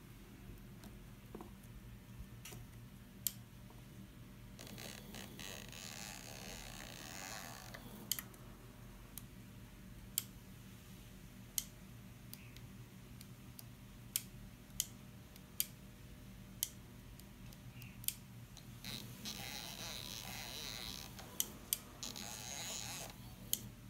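Handwheel of a handheld CNC manual pulse generator (MPG) pendant clicking through its detents: single clicks here and there, and two stretches of faster turning where the clicks run together into a rasp, over a faint steady low hum.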